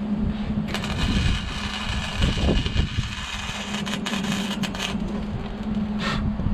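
Arc welder crackling and hissing for about four seconds, starting just under a second in, then a short second burst near the end: a nut being welded onto a broken bolt so the bolt can be pulled out. A steady low hum runs underneath.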